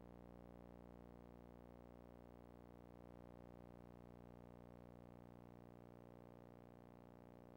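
Near silence, with a faint, steady hum made of many evenly spaced tones that never changes.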